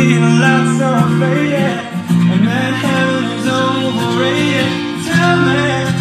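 Pop-rock song with singing and guitar played loud through DB Technologies DVA T4 line array speakers and their subwoofers, picked up on a phone microphone that cannot capture its full dynamic range.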